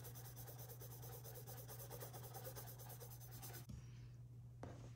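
Faint scratching of a small paintbrush being worked over a textured canvas, over a steady low hum. The scratching stops abruptly about three-quarters of the way through.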